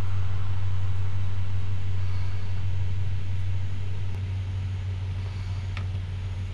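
Steady low hum that drops somewhat in level about four seconds in. A single light click near the end comes from a small plastic airsoft part being handled.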